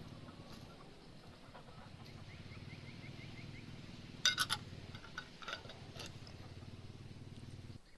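A few sharp clinks about four seconds in over a steady low hum that cuts off near the end, with a faint rapid chirping in the background.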